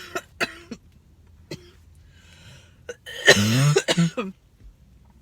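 A woman coughing: a few short coughs, a breath in, then a loud harsh cough about three seconds in, followed by two shorter ones. It is a lingering chest cough that, by her account, brings nothing up.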